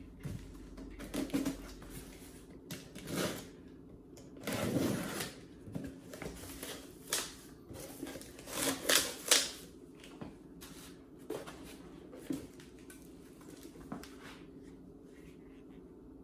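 Cardboard boxes and packing material being handled and opened: irregular rustles, scrapes and small knocks, loudest about nine seconds in.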